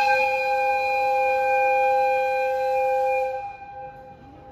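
EF55 electric locomotive's whistle blowing one long, steady, high-pitched note made of two tones. It cuts off about three and a half seconds in, with a short echo fading after it.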